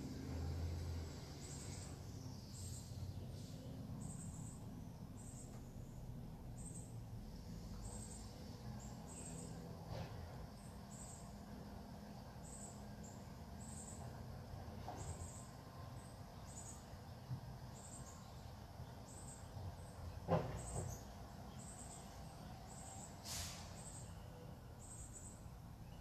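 Outdoor ambience: a short, high chirp repeats about once a second over a low, steady rumble, with a single sharp knock about twenty seconds in.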